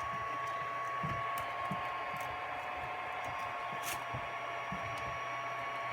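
3D printer's cooling fan running steadily, a whirring hiss with a faint whine, while the print is paused for a filament change; a few faint ticks sound over it.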